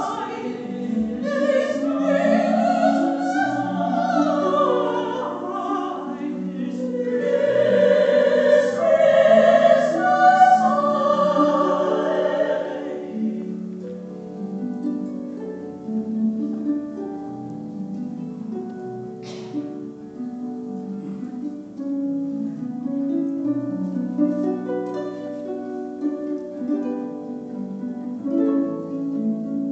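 Female voices singing a carol with concert pedal harp accompaniment; about 13 seconds in the voices stop and the harp plays on alone in plucked arpeggiated notes.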